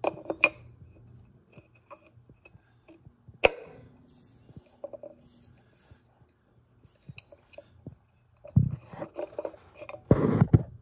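Small clinks, clicks and knocks of metal ceiling-fan parts being handled during assembly, with a sharp click about three and a half seconds in. A denser run of knocking and scraping comes near the end.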